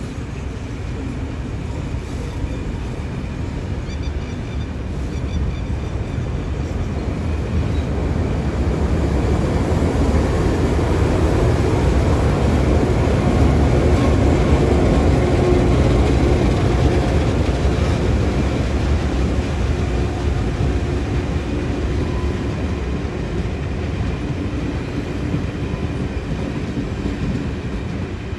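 Long heritage passenger train rolling past on the track beside the platform: steady noise of carriage wheels on the rails, growing loudest about halfway through as a diesel locomotive marshalled in the middle of the train goes by, then easing slightly.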